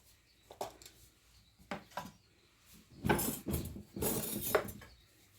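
Kitchen utensils and a mayonnaise container being handled: a few light clicks and taps, then two short noisy scrapes about three and four seconds in as mayonnaise is put on the burger.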